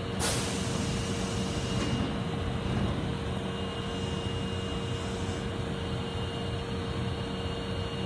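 Interior of an Osaka Metro 22 series subway car: a hiss starts just after the beginning and lasts about two seconds, over a steady electrical hum.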